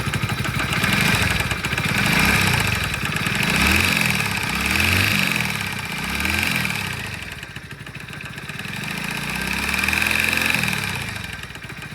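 Hero Splendor BS6's single-cylinder engine running and revved up and down several times, with an abnormal noise from inside the engine that the mechanic suspects is a loose balancer nut.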